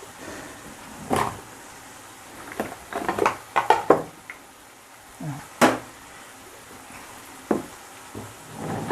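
Kitchen clatter: several separate knocks and clinks of utensils and containers, with a cluster about a third of the way in, over a faint steady sizzle of prawn masala frying in coconut oil.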